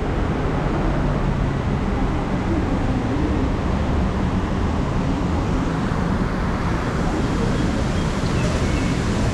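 Steady hum of city street traffic, with faint voices in the background.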